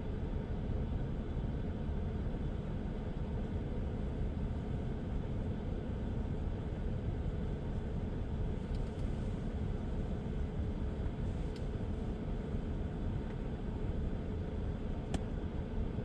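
Steady low rumble of a vehicle in motion, with three faint clicks in the second half.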